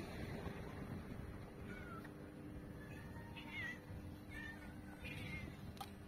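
Cats meowing: a few short, faint meows that bend up and down in pitch, about two, three and a half and five seconds in, over steady low background noise.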